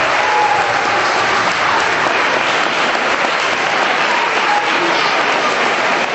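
Audience applauding at the end of an acrobatic rock and roll routine: steady, dense clapping.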